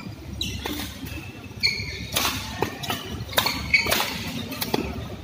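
A doubles badminton rally: about seven sharp racket strikes on a shuttlecock in quick succession, with short squeaks of shoes on the court mat.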